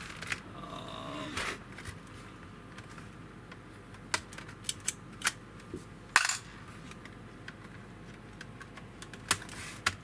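Scattered sharp clicks and taps of a laptop's plastic case being handled and turned over on a workbench, about eight in all, the loudest about six seconds in.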